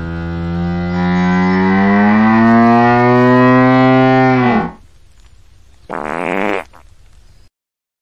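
Hippopotamus giving one long, low bellow, its pitch slowly rising, that cuts off about four and a half seconds in. A short, raspier call follows about six seconds in.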